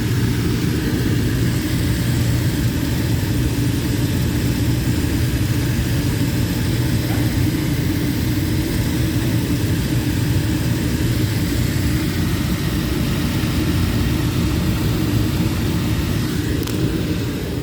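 Jacuzzi pump and jets running steadily: a loud, even motor hum under a constant hiss of churning water and air.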